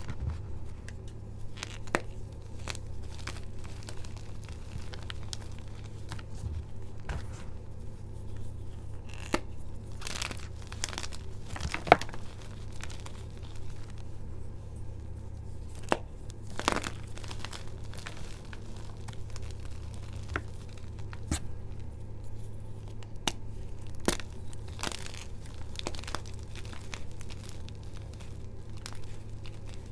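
Hands crushing and squeezing crumbled gym chalk blocks and powder, topped with holi powder and starch: irregular sharp crunches and crackles as chunks break, with soft crumbling in between. A steady low hum runs underneath.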